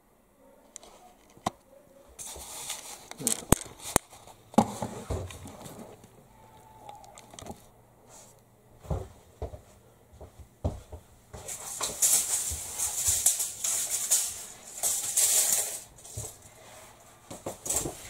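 Crinkly rustling of roller blind fabric being handled and unrolled, with scattered knocks and clicks; the rustling is loudest in the latter half.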